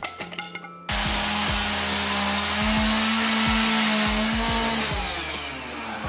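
A large Stihl chainsaw cuts in suddenly about a second in and runs loud and steady at high revs. Near the end its pitch falls away as the engine slows down.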